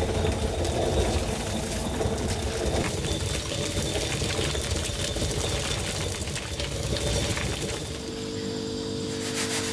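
Hand-turned stone quern grinding dried corn kernels: a continuous rough grating of stone on stone with grain crunching between them. About eight seconds in it stops, giving way to a steady hum.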